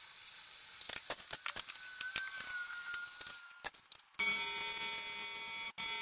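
AC TIG welding arc on thick aluminum: quiet for the first four seconds apart from a few clicks and a faint whistle, then the arc is struck about four seconds in and buzzes steadily.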